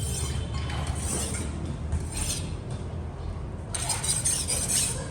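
Metalworking in a smithy: rasping, scraping strokes of metal on metal, each lasting up to about a second, over a steady low hum.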